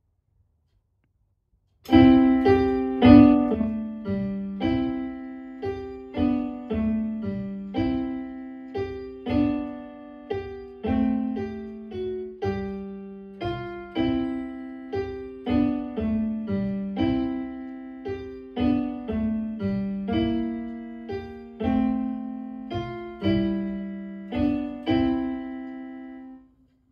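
Electronic keyboard played with a piano voice: a short, simple piece of single notes and small note groups at a steady, moderate pace, each note struck and dying away. The playing begins about two seconds in and stops just before the end.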